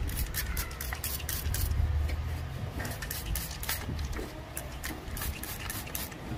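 Hand trigger spray bottle squirting degreaser in short repeated hisses, about two or three a second, mixed with the rubbing of a microfiber cloth wiping grime off the engine bay, over a low steady rumble.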